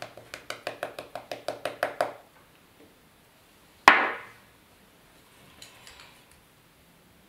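Quick, even finger taps on a small vial of gold leaf flakes, about six a second for two seconds, shaking the flakes out onto the work mat. About four seconds in there is one sharp knock, the vial or a jar being set down on the table, then light handling noises.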